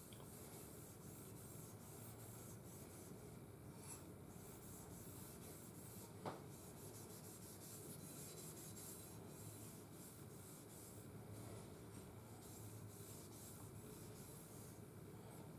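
Steel wool rubbing back and forth along an oiled shotgun barrel, faint and scratchy, scrubbing off light surface rust. A single light click about six seconds in.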